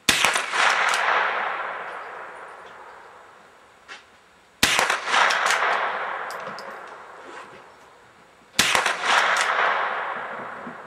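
Three shots from a Remington 572 pump-action .22 LR rifle, about four seconds apart. Each is a sharp crack followed by a long echo that dies away over about three seconds.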